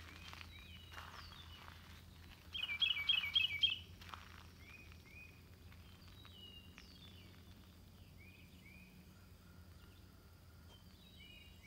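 Songbirds singing and calling: short downslurred chirps throughout, and a louder run of about six quick repeated notes a little after two and a half seconds in.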